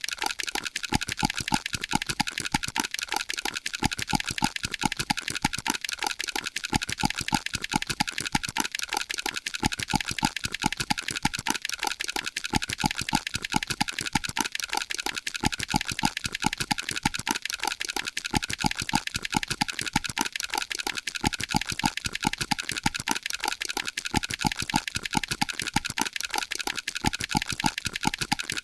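Loud, rapid clicking that keeps up a steady, even rhythm, over a constant high hiss.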